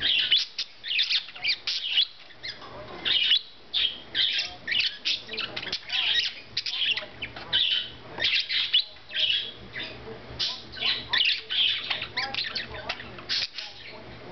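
Budgerigars chattering and squawking: a fast, unbroken run of short high chirps and warbles.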